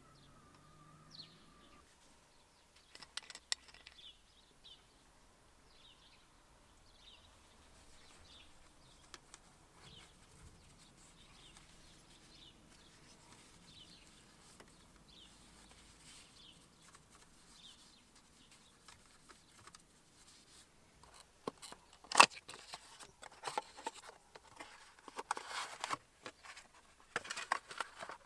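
Faint bird chirps in the background, and near the end a run of handling noise as a small cardboard box is opened: clicks and rustling, with one sharp click the loudest.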